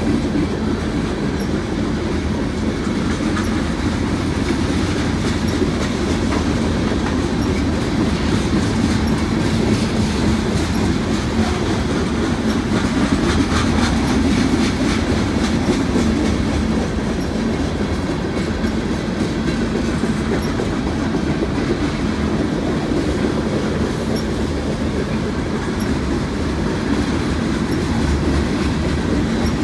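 Norfolk Southern freight train cars rolling steadily past, wheels clicking over the rail joints.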